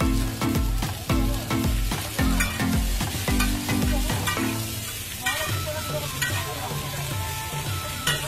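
Food being stirred and fried in a pan, with frequent short scraping strokes, over background music. The music has a steady pulsing bass beat that gives way to a melody about halfway through.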